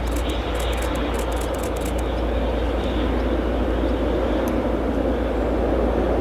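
SU45 diesel-electric locomotive running steadily, a heavy low rumble.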